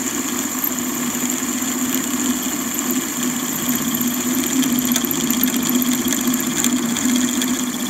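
Warco lathe running steadily with a 6.8 mm twist drill in the spindle chuck, fed gently into a metal block to drill a cross hole, with a steady hum and a faint high whine. The cut is intermittent because the drill is breaking into an existing bore.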